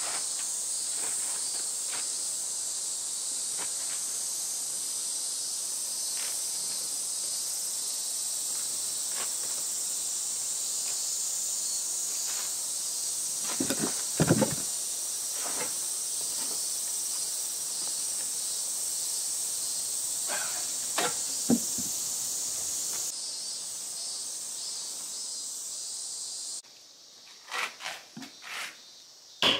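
Cicadas droning steadily in a high, shimmering chorus. Around the middle come a few heavy wooden thumps as a big hollowed log chair body is tipped over onto its side. Near the end, after the chorus stops, a mallet drives a chisel into the log's end grain in a few sharp knocks.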